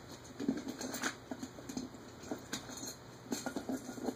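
A coin scraping the scratch-off coating off a trading card, in short, irregular strokes.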